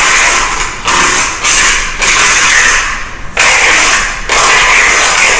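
Duct tape being pulled off the roll in a run of long, loud rasping rips, one stretch after another with short breaks between pulls, as it is wound around a person taped to a chair.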